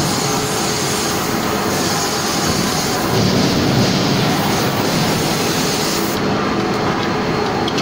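Steady, loud din of forging-line machinery, a continuous mechanical rumble and hiss with no separate hammer blows standing out.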